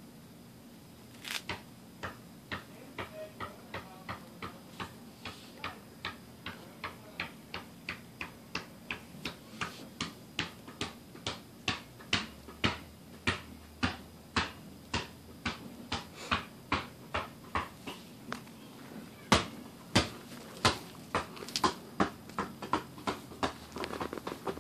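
A steady series of sharp clicks, about two to three a second, growing louder toward the middle and more uneven near the end.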